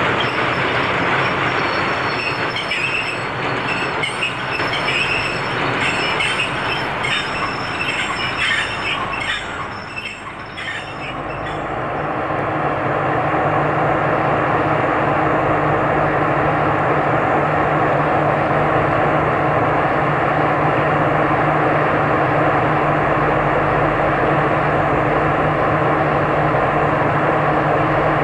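Oil tank wagons rolling past, their wheels squealing and clicking on the rails. About 12 seconds in this gives way to the steady running of an NS 2200-class diesel locomotive's engine.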